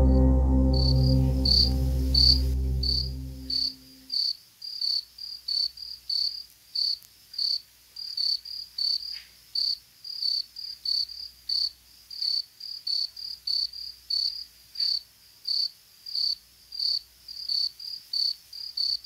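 Crickets chirping steadily: short high chirps, about two or three a second. A low ambient music drone fades out in the first few seconds.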